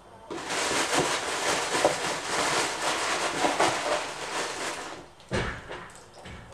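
Dry cereal pouring from a cardboard box into a mug, a loud dense rattle of small pieces that stops after about four and a half seconds. A short low thump follows, then faint crunching clicks.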